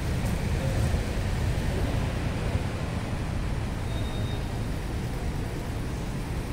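Steady urban road traffic: a low rumble of cars driving past. A brief faint high whistle comes about four seconds in.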